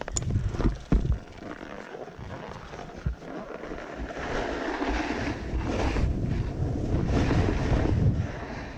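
Snowboard sliding and scraping over hard, wind-packed snow, the scrape growing louder as the board picks up speed, with wind buffeting the microphone. A couple of knocks come in the first three seconds as the rider gets going.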